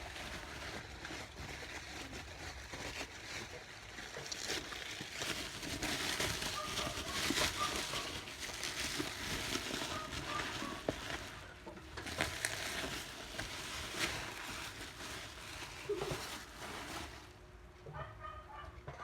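Packaging being handled while a thermal label printer is unboxed: continuous rustling and crinkling with scattered light taps and knocks, thinning out near the end.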